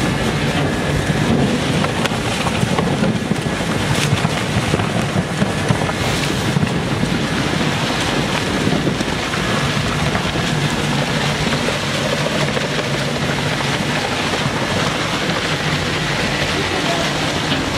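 Industrial plastic shredder running, its blades tearing through foil-coated plastic film and scrap: a steady, dense noise with a few sharp cracks about four and six seconds in.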